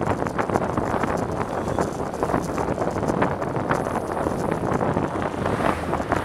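Steady wind noise buffeting the microphone of a bicycle-mounted action camera while riding, mixed with tyre and road rumble and frequent small rattling clicks.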